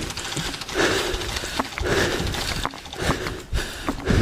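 A person breathing hard and noisily, about one breath a second, with scattered sharp clicks.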